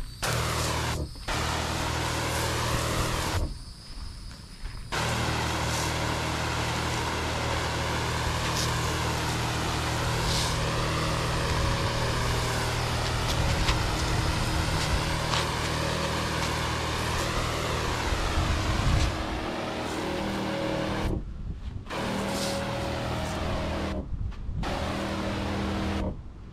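Electric pump of a Kobalt 40V battery-powered backpack sprayer running with a steady hum and the hiss of the wand spraying. It cuts out briefly a few times.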